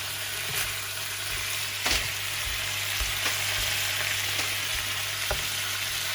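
Pork sautéing with onion, garlic and ginger in a hot pan: a steady sizzle, with a few sharp clicks of the spatula striking the pan as it is stirred.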